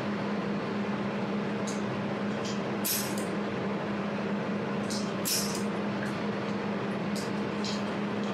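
200-watt jewelry laser welder running with a steady machine hum, broken by short, sharp, hissy snaps in about four pairs at irregular intervals, typical of the welder's laser pulses striking the metal.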